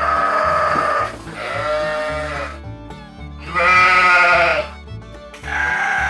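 Sheep bleating: four wavering calls of about a second each, the third the loudest, over background music.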